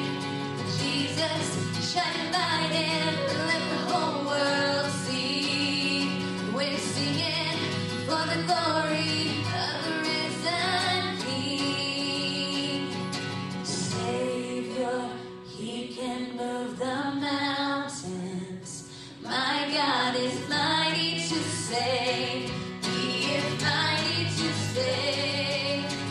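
A woman singing a worship song into a microphone, with acoustic guitar accompaniment.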